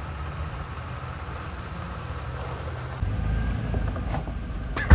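Off-road 4x4's engine running at low speed with a steady low rumble while crawling a trail, getting louder about three seconds in. A single sharp knock sounds near the end.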